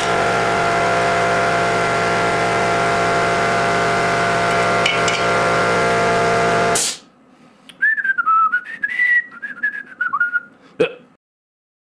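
A steady electric machine runs with a hum of several fixed tones, then cuts off abruptly about seven seconds in. A man then whistles a short wavering tune, followed by a single sharp click.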